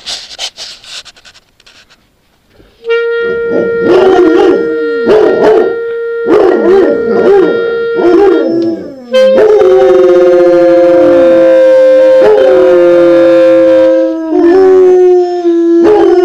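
Young Labradors howling along with a clarinet. The clarinet holds long steady notes from about three seconds in, while the dogs' howls rise and fall over them in short cries, then turn into one long drawn-out howl from about nine seconds.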